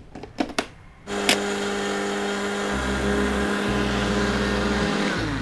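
Philips 600 W countertop blender grinding lump charcoal into powder: a few clicks as the jar is seated on the base, then about a second in the motor starts and runs steadily.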